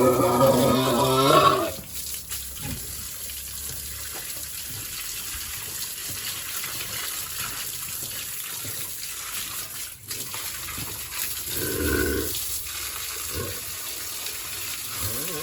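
A pig squeals loudly for the first second and a half or so, then water sprays steadily from a hose as the pig pen is washed down, with a short low sound about twelve seconds in.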